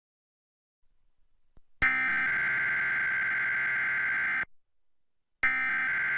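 Emergency Alert System SAME header data bursts: a harsh, buzzy digital screech. The first burst starts about two seconds in and lasts about two and a half seconds, then a pause of about a second, then the second burst begins near the end.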